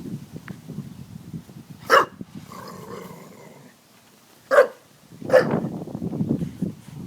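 Dog barking: three sharp barks about two, four and a half and five and a half seconds in, with a low growl before and after them.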